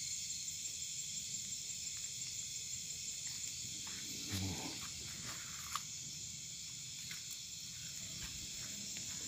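Steady chorus of night insects such as crickets, a high continuous trilling. A short low sound comes about four and a half seconds in, and a single sharp click a little over a second later.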